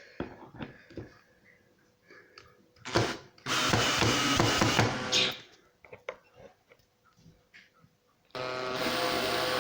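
Clicks and knocks of plastic parts being handled, with a sharp knock about three seconds in, then a cordless screw gun running in short stretches as screws are driven into the storage box's plastic panels.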